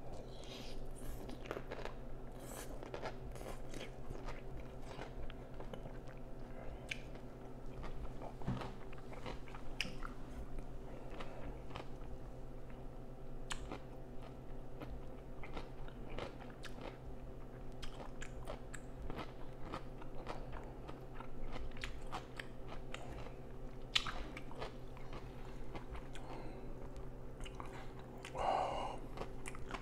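Close-miked chewing of instant noodles: a continuous run of small mouth clicks and smacks over a steady low hum. Near the end there is one brief louder sound.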